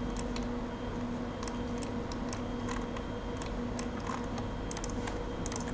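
Scattered, irregular light clicks from a computer mouse and keyboard, over a steady low electrical hum.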